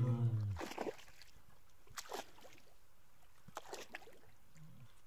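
A brown bear's low, drawn-out roar fades out about half a second in, followed by a few soft splashes and sloshes of water as the wet bear climbs out of the river onto the bank.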